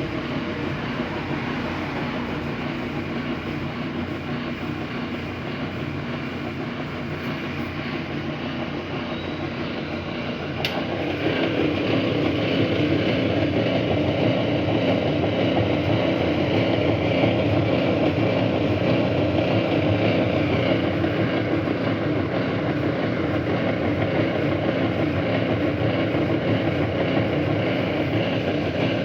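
Washing machine motor running, switched by a plain switch in place of its removed electronic timer, a steady mechanical drone. About eleven seconds in there is a click, and the running gets louder and stays louder.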